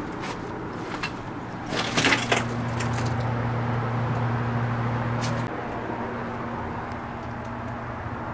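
Steady low hum of a motor vehicle engine outside, louder from about two seconds in until it drops off after about five and a half seconds, over a steady rushing background with a few faint knocks.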